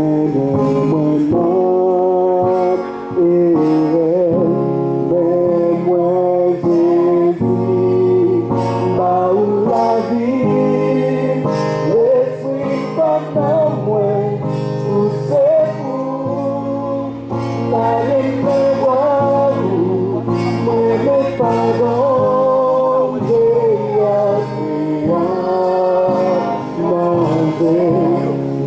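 A small vocal group singing a gospel song together into a handheld microphone, several voices holding sustained, wavering notes.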